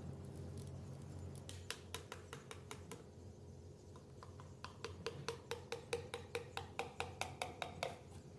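A piston being tapped down through a ring compressor into a cylinder bore of a Toyota 1DZ diesel block with a tool handle against its crown. There are light, sharp taps, a few at first, then after a short pause a steady run of about four taps a second that grows a little louder.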